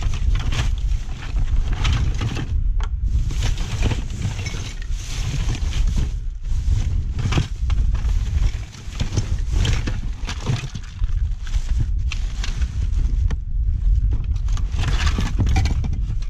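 Wind buffeting the camera microphone as a heavy, uneven rumble, over repeated rustling and clattering as a pile of junk is sorted through by hand.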